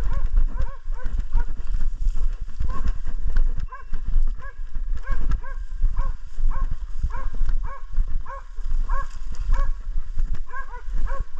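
Hunting dogs barking without pause, a rapid run of sharp barks at two or three a second: dogs baying a wild boar they are holding.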